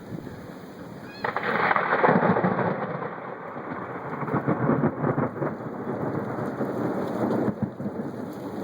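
Thunder from a nearby lightning strike: it breaks in suddenly about a second in, then goes on as a long rolling rumble over the hiss of rain.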